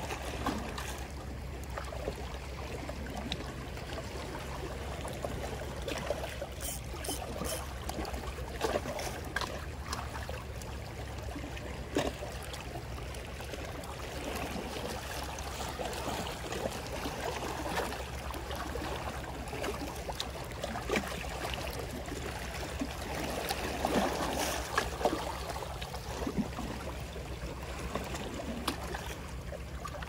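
Small sea waves lapping and trickling among shoreline rocks, with occasional short clicks.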